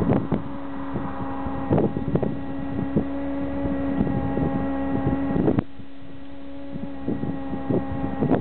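A steady mechanical hum made of several even tones, which cuts out about five and a half seconds in. Irregular knocks and wind buffeting on the microphone run through it.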